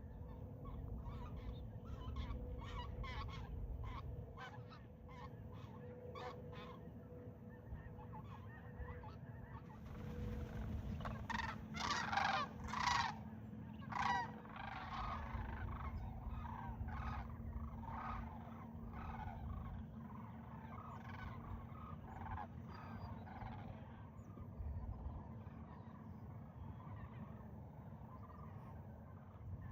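A flock of geese calling: many short honks in quick succession and overlapping, with the loudest cluster of calls about halfway through.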